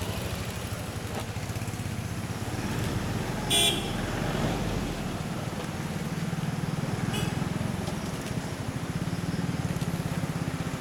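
Vehicle engine running steadily nearby, with a brief horn toot about three and a half seconds in and a fainter toot about seven seconds in.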